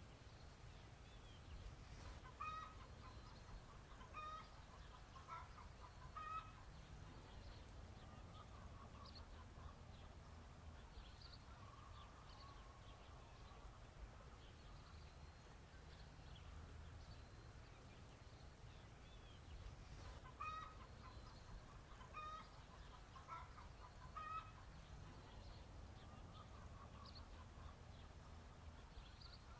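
Chickens clucking faintly: a run of short clucks, then quiet, then another run near the end, over a steady low background rumble.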